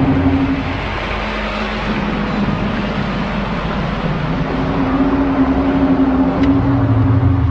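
Low, droning 'sky trumpet' hum of the kind reported as strange sounds in the sky. It holds one note, drops to a lower note about a second in, and returns to the first note around four and a half seconds in, over a steady rushing noise. A deeper hum joins near the end.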